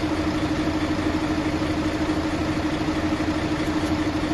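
Mercedes-Benz Actros truck's diesel engine idling steadily, with a constant low hum.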